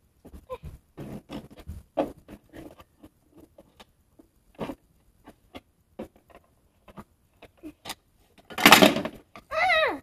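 Plastic dollhouse toys being handled and moved about: scattered small clicks, taps and knocks. Near the end comes a loud rustle, then a short vocal sound that slides downward in pitch.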